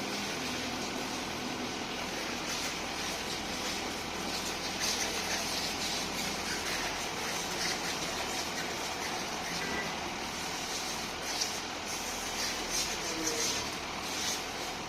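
Tractor engine running steadily, with brief louder rattling noises now and then.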